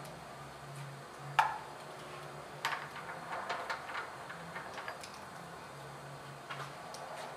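Metal clinks and knocks from a ported steel muzzle brake being handled and taken out of a lathe's three-jaw chuck, the sharpest clank about a second and a half in, over a faint low machine hum.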